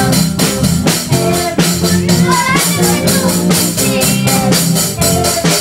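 Live amateur rock band playing in a small room: a drum kit with cymbals keeps a steady beat under electric guitars.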